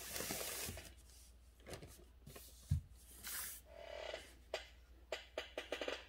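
Calligraphy desk work: a rustling swish of brush and paper, a dull knock on the table, then a quick run of light taps and clicks near the end.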